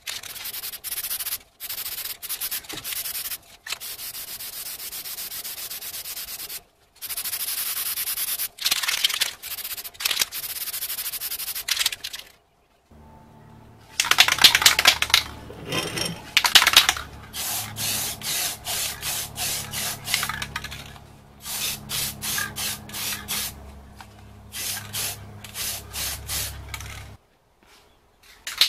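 Aerosol can of high-heat spray paint hissing in sprays of one to a few seconds as it coats a steel barbecue pan. After a break about twelve seconds in, the sprays come in many shorter bursts.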